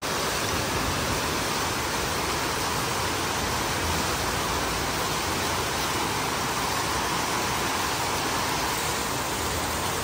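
Heavy rain pouring steadily onto a paved street, a dense even hiss.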